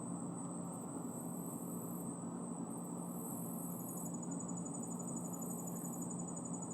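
Steady low background hum with a constant high-pitched whine and insects trilling in short, repeated pulses.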